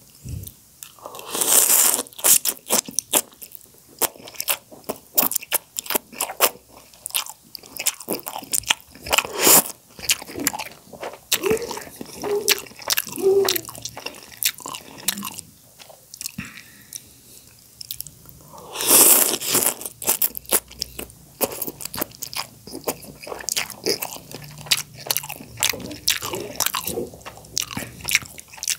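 Close-miked eating of instant noodles in soup: continuous wet chewing and lip smacks, with two louder, longer noisy stretches, one about two seconds in and one past the middle, likely noodle slurps.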